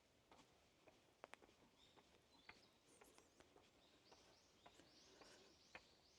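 Faint footsteps and small clicks on a forest trail. From about two-thirds of the way through, a bird repeats short, high, arched chirps several times a second.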